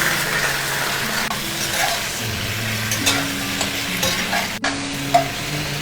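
Chicken drumsticks sizzling steadily as they fry in hot oil and caramelized sugar in a pan.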